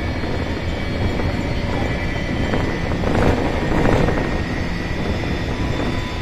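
Running noise inside a motor car of a JR 203 series electric train at speed: a steady rumble of wheels on rail, with the faint high whine of the traction motors and gears held on top, swelling a little about three seconds in.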